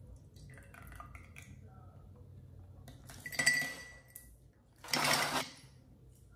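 Ice cubes dropped into a glass mug in two lots, about three and a half and five seconds in, clattering against the glass, the first with a brief ringing clink.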